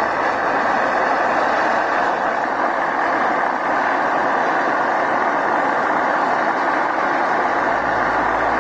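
Steady, loud roar of a forge with a shop-vacuum blower forcing air into it.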